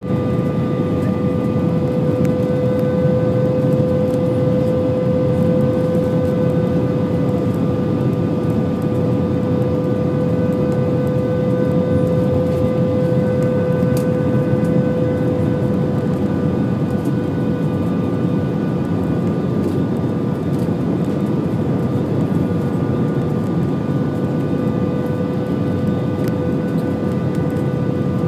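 Steady cabin noise inside an Airbus A320 descending on approach with its flaps extended: a constant rush of air and engine noise, with a steady hum and a few fainter, higher whines over it.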